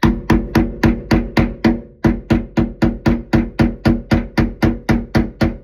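Hammer tapping rapidly and evenly on the metal lug of a garbage disposal's twist-lock mounting ring, about four blows a second with a brief pause about two seconds in; each blow rings briefly. The unit is seized and is being knocked round to loosen it.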